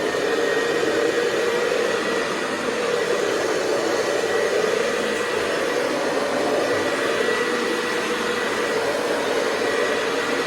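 Hoover Convertible 704 upright vacuum cleaner running steadily: a smooth purr with a steady hum and a fainter high tone over the rush of air.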